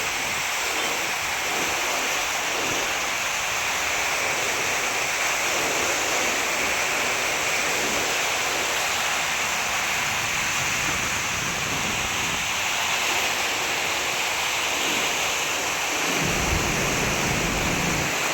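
River swollen by heavy rain, its water rushing steadily. A low rumble joins in near the end.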